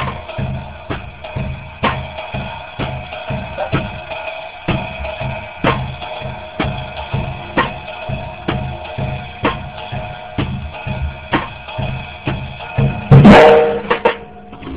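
Drum kit played in a steady swing pattern, with a strong beat about once a second and lighter strokes between. The playing ends with one loud final hit near the end.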